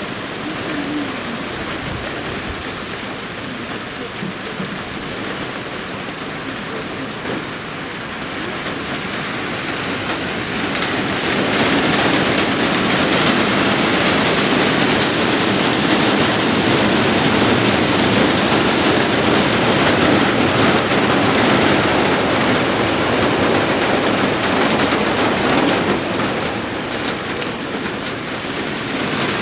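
Moderate downpour of rain, an even hiss that swells louder about ten seconds in and eases briefly near the end.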